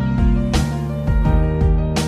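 Electronic background music with a steady beat and a sharp hit about every second and a half.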